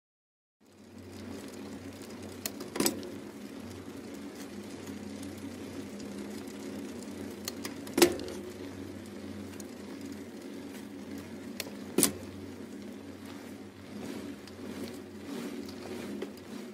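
A steady mechanical whirring hum with three sharp clicks a few seconds apart, the middle one loudest.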